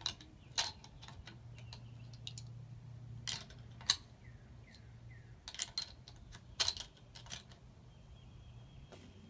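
Scattered sharp metallic clicks and clacks from handling a Savage 110E bolt-action rifle in .270 Winchester, typical of cartridges being pushed into its magazine and the action being worked. No shot is fired.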